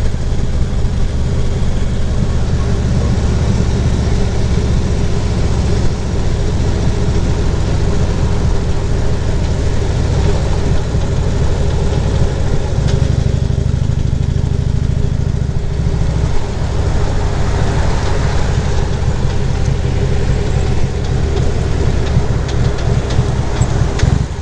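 Harley-Davidson V-twin motorcycle engine running steadily. A little past the middle it gets louder for about three seconds, then drops back, and a rushing noise like wind builds in the last few seconds.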